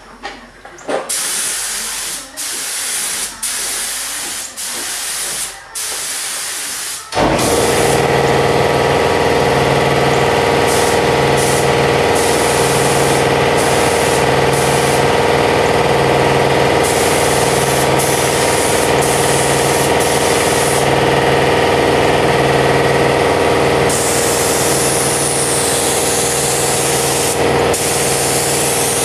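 Gravity-feed paint spray gun laying base coat in repeated hissing passes of about a second each, trigger pulled and released. About seven seconds in, a motor starts running with a steady hum under a continuous spray hiss.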